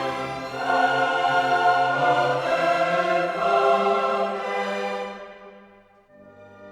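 Background orchestral music with choir, swelling about a second in and fading away after about five seconds; quieter held string notes come in near the end.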